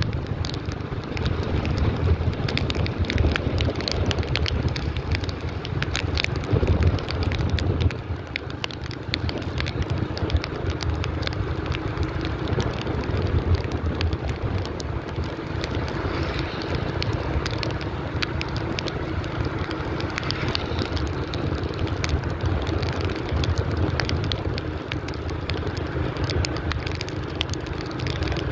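Motorbike engine running while riding, under a steady rumble of wind on the microphone, with scattered light crackles throughout.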